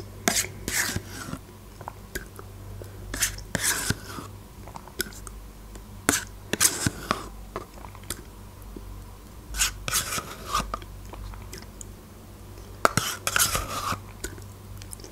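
Someone eating yogurt with a metal spoon from a plastic cup: wet mouth and lip smacks with sharp spoon clicks, in about five short bouts roughly three seconds apart.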